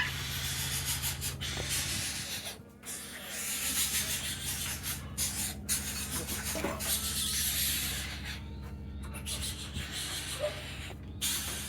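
Continuous rubbing noise over a low steady hum, broken by a few short gaps.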